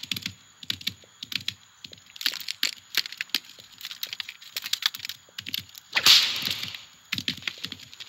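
Animated-film sound effects with no dialogue or music: a string of small, quick clicks, taps and cracks, with a loud whoosh about six seconds in.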